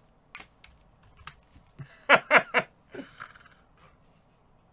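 A dog barking three times in quick succession about two seconds in, then once more, softer, about a second later. A few faint clicks come before the barks.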